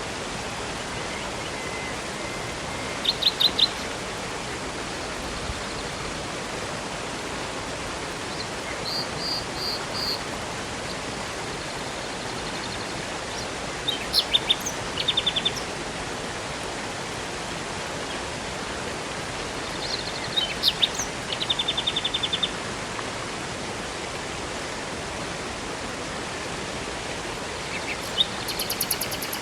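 Steady rush of a river or waterfall, with birds singing short, rapid trills of repeated high notes about every five or six seconds.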